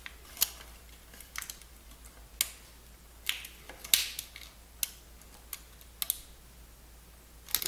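Sharp, irregular clicks and ticks, about one a second, from fingers handling a thin plastic keyboard membrane ribbon and the small plastic case of a Timex Sinclair 1000 while the ribbon is worked into its board connector.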